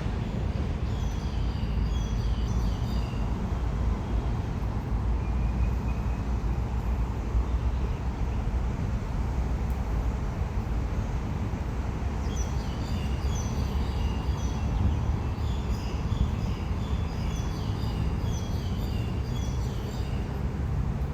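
Outdoor ambience: a steady low rumble with small birds chirping in short, quick repeated phrases, about a second in and again from about twelve seconds in.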